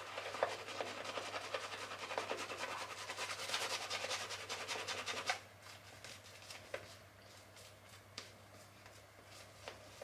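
Three-band badger shaving brush working lather over the face: a wet, bristly rubbing that stops about five seconds in. A few faint ticks follow.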